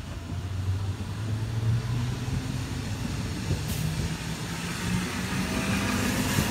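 JR West limited-express electric train pulling away along the platform, its motors whining in several tones that climb steadily in pitch as it gathers speed, over the rumble of the cars.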